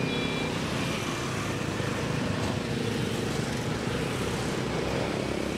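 Steady road traffic: motorbike and car engines running past in a continuous rumble.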